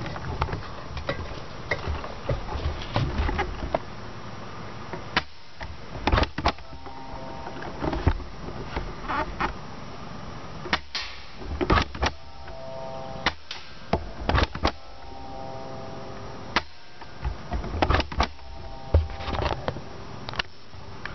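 Handling noise from a camera clamped to an airsoft gun as the gun is carried: irregular knocks and clicks, several a few seconds apart and some in quick clusters, a few followed by a brief ringing tone.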